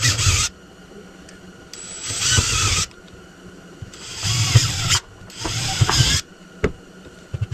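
Power drill run in four short bursts of about a second each, drilling through a turkey foot, with a couple of sharp clicks near the end.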